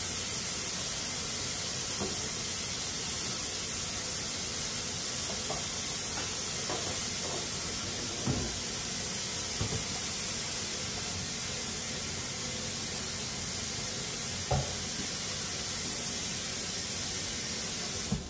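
A steady hiss with a few light knocks scattered through it, the loudest knocks about two-thirds of the way in and just before the end. The hiss cuts off abruptly right at the end.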